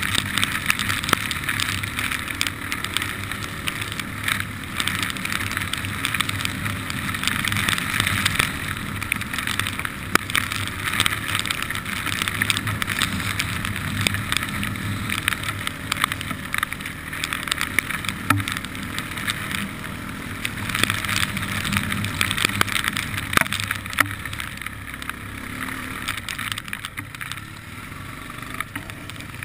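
An ATV's engine running steadily under way on a wet dirt trail, mixed with tyre and wind noise and scattered sharp ticks and knocks. It gets somewhat quieter over the last few seconds.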